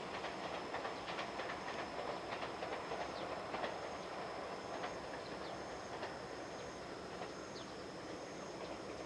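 Ex-Tokyu 17480-series electric train running on the line, a steady rumble with scattered wheel clicks over the rail joints, fading slowly as it draws away. Faint high repeating insect chirps sound underneath.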